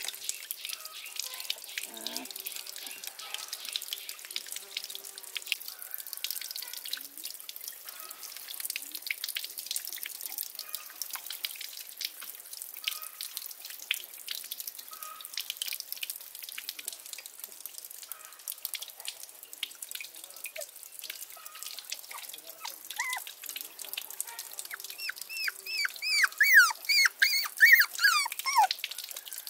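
Water trickling and dripping steadily into a pond. Near the end a puppy whines several times in a quick run of high, rising-and-falling whines, the loudest sound here.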